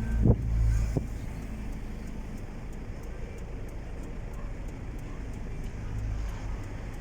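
Motor vehicle engine running with a steady low rumble, with two dull thumps in the first second.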